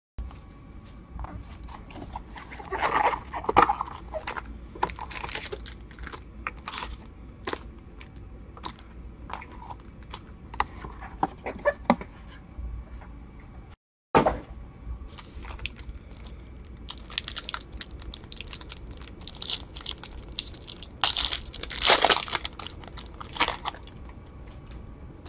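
Trading-card packaging being handled: a cardboard card box opened and its foil packs crinkled and torn open, with scattered clicks and rustles from cards and cardboard. The loudest crinkling and tearing comes about three-quarters of the way through. The sound cuts out for a split second about halfway.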